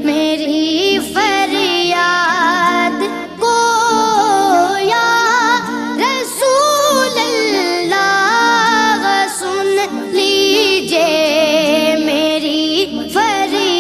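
Music with a woman singing a wavering, ornamented melody over steady accompaniment.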